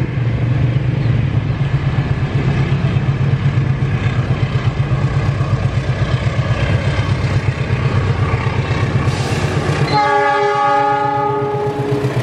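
Diesel-electric locomotive approaching with a steady low rumble. About ten seconds in it sounds its multi-tone horn for about two seconds as it arrives.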